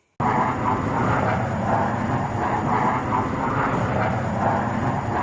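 Jet aircraft engine noise, loud and steady with a faint pulsing, cutting in abruptly.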